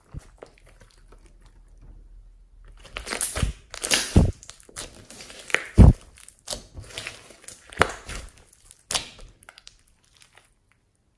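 A large mass of glossy slime mixed with clay, makeup and small foam beads is squeezed, stretched and pressed by hand, giving irregular wet crackles and pops. The pops come thickest in the middle and die away near the end.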